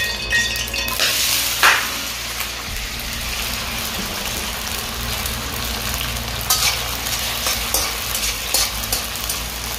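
Diced chicken luncheon meat frying in hot oil in a non-stick pan. The sizzle starts suddenly about a second in as the meat hits the oil, then runs on evenly, with a spatula scraping and stirring the pieces in the last few seconds.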